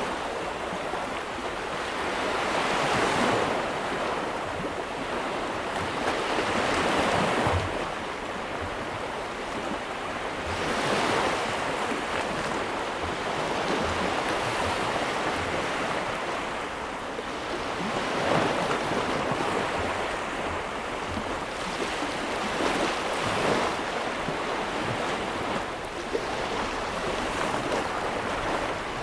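Sea waves breaking and washing onto a shore, a steady rush of surf that swells every few seconds as each wave comes in, with some wind on the microphone.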